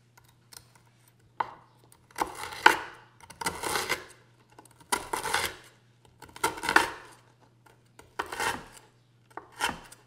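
A santoku knife chopping down through a stack of Double Stuf Oreo cookies on a wooden cutting board. Each cut gives a short crunchy crackle, about seven chops a second or so apart.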